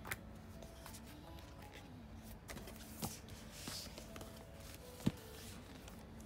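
Paper pages of a softcover art book flipping and rustling as books are handled, with a few sharp taps, the loudest about five seconds in. Faint background music runs underneath.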